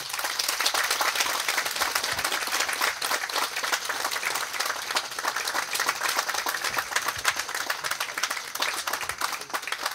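An audience clapping in a steady round of applause.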